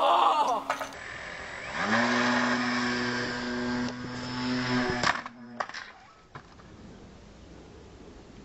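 Radio-controlled model glider whining through the air with rushing wind. The whine steps up in pitch about two seconds in, holds steady, and cuts off suddenly a little after five seconds. A brief shout comes at the very start.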